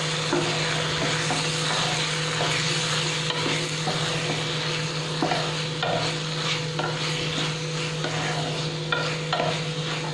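A spatula stirring and scraping cauliflower in thick tomato sauce around a non-stick kadhai, in short irregular strokes over a steady sizzle. A steady low hum runs underneath.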